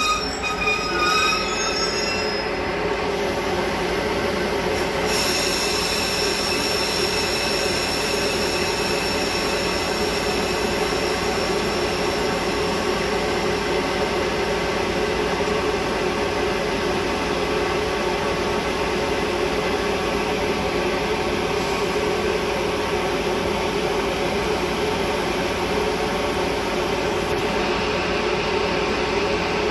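Metra diesel commuter train running on the rails, a steady rumble with the wheels squealing in a high, steady ring.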